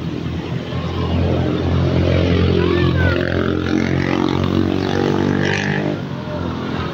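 A motorcycle engine running steadily, getting louder about a second in and easing off near the end.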